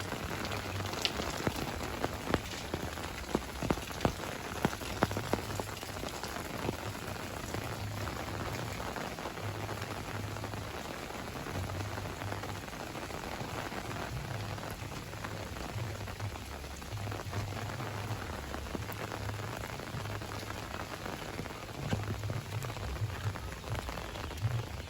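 Steady rain falling, with sharp individual drops hitting close by, most often in the first few seconds, over a patchy low rumble.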